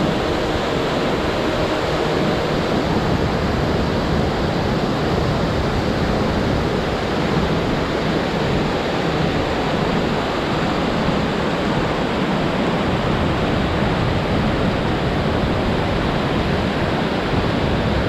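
High Falls, a large waterfall, rushing down a broad rock slope into rapids below: a loud, steady roar of falling water.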